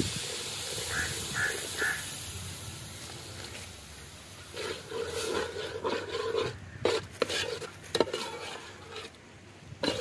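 Water poured into a hot metal pot of frying quail masala, hissing and sizzling and fading over the first few seconds as the thick masala is loosened into gravy. Then a steel ladle stirs and scrapes the gravy, knocking against the pot several times.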